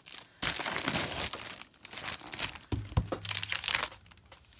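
Clear plastic bag crinkling and rustling as it is pulled off a boxed item, with a low knock about three seconds in.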